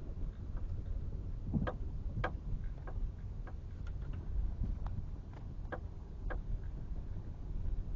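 Low rumble of a vehicle driving slowly, heard from inside the cab, with irregular light ticks and clicks scattered through.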